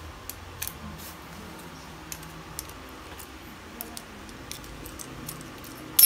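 Scattered light metallic clicks and clinks from a folding bike multi-tool being handled and worked at the rear disc-brake mount.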